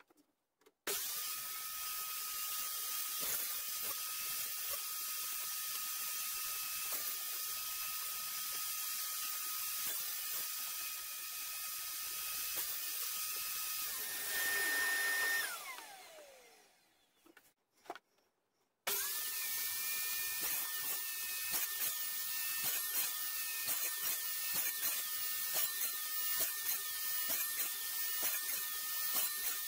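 Table saw running while cutting half-lap joints in softwood timber. About 15 seconds in it gets louder briefly, then is switched off and winds down with a falling whine. After a short pause it starts again and runs steadily.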